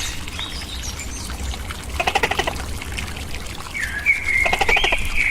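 Tokay gecko giving a rapid clucking rattle, once about two seconds in and again near the end. Whistling bird calls and a trickle of water run behind it.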